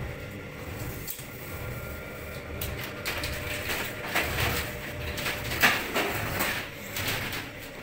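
Scrapes, rattles and knocks of a long aluminium cabinet profile being handled and carried, with one sharp knock about three-quarters of the way through.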